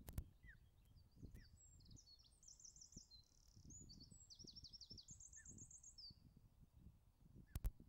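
A small songbird singing high, rapid trilled phrases over a low rumble, with a sharp click just after the start and a double click near the end.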